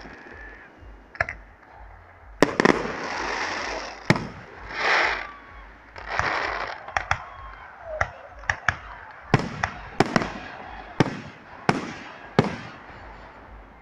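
Aerial fireworks shells bursting: a series of sharp bangs, a few seconds apart at first and then coming faster, about one or two a second, in the second half, with crackling hiss between the bursts.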